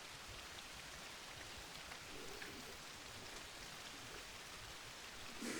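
Steady rain falling, a faint even hiss with no other clear events.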